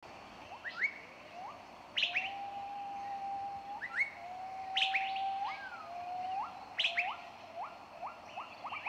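Birdsong: long whistled notes, each ending in a sharp upward slur, mixed with quick rising chirps. Near the end it speeds up into a rapid run of short rising notes.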